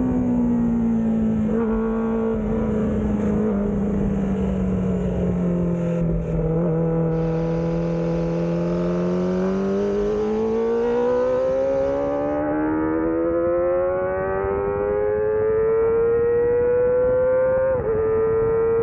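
Kawasaki ZX25R's 250 cc inline-four engine heard onboard. The engine note drops as the bike slows for a corner, stays low for several seconds, then climbs steadily under hard acceleration, with one quick upshift dip near the end.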